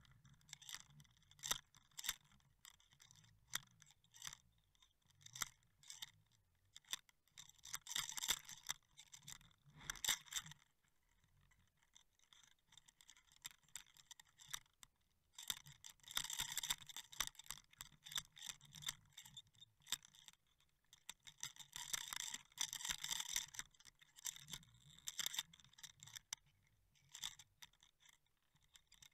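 Faint scraping and sharp clicking against the housing of a Waterwolf underwater camera on a fishing line, coming in irregular bursts with the longest scrapes about a third and two-thirds of the way in.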